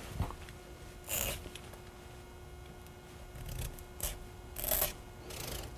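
A blade scraping through the hard skin of a butternut squash as it is peeled: a few short scraping strokes, one about a second in and three more between four and five and a half seconds in.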